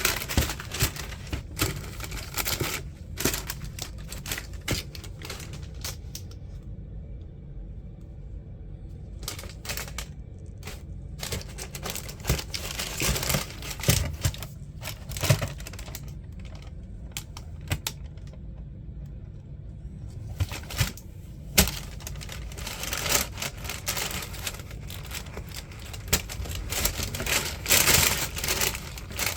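Sneaker packaging being handled: irregular crinkling of paper and clicks and taps against a cardboard shoebox, with quieter pauses about a quarter of the way in and again past the middle.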